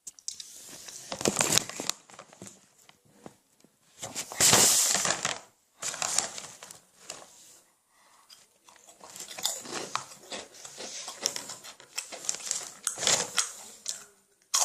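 Crunching and chewing on corn Honey Tongtong snack chips close to the microphone, in irregular crackly bites, with crinkling of the snack packaging. The loudest burst comes about four seconds in.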